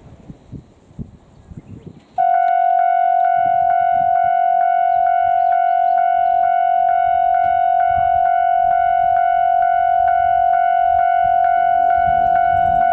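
Railway level-crossing warning bell starts ringing abruptly about two seconds in: a steady clanging tone repeated about three times a second, warning of an approaching train. Near the end the low hum of the approaching diesel train's engine joins it.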